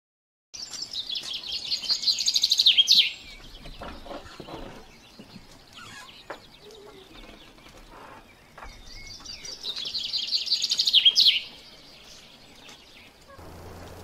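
A songbird singing twice, about eight seconds apart. Each song is a fast run of repeated high notes that grows louder for about two and a half seconds and ends in a quick falling flourish. Fainter chirps come in between.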